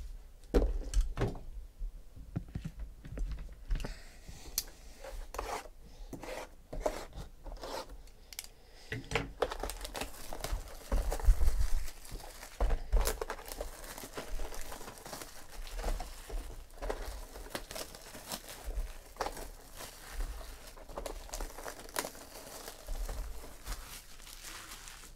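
Clear plastic shrink-wrap being torn and stripped off sealed trading-card hobby boxes, crinkling and crackling, with scattered knocks as the boxes are handled. At first the crackles come one at a time; from about nine seconds in the crinkling is nearly continuous.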